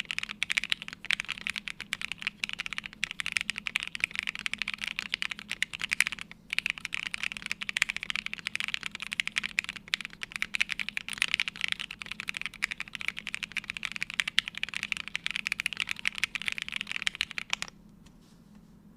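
Continuous typing on a plateless mechanical keyboard with lubed Gateron Box Ink Pink linear switches and CRP Jipink keycaps, a rapid stream of keystrokes with a short break about six seconds in. The typing stops about a second before the end.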